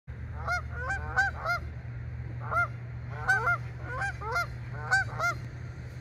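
Canada geese honking: about a dozen short, arching honks in loose bunches, over a steady low rumble.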